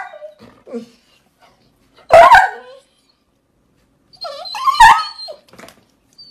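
A yellow Labrador-type dog giving two short whining yelps, one about two seconds in and a longer, wavering one near five seconds.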